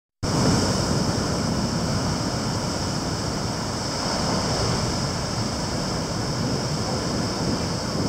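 Heavy surf from a typhoon swell breaking over a harbour breakwater and lava rocks: a continuous wash of waves.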